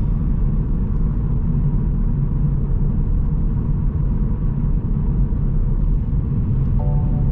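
Steady low rumble of road and engine noise inside the cabin of a 2021 Kia Ceed Estate with its 1.5 T-GDi turbocharged petrol engine, while driving.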